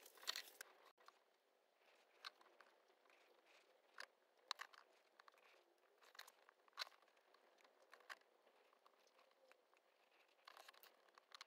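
Near silence broken by faint, scattered small clicks and crackles: a paintbrush dabbing thick paint onto a plastic battery case while the case is handled.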